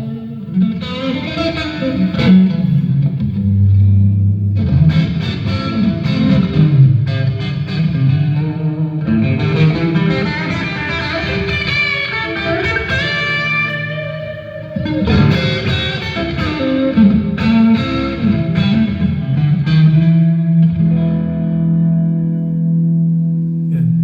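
Rock band playing an instrumental passage: electric guitar through effects over bass, with a long held low note in the last few seconds.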